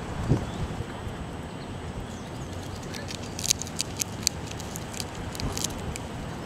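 Groundhog chewing a peanut held in its front paws: a quick run of about a dozen sharp crunches from about halfway in, over steady low background noise.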